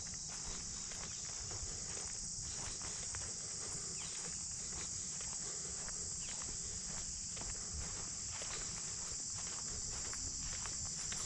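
Steady high-pitched chorus of insects in the woods, with the hiker's footsteps crunching irregularly along the trail.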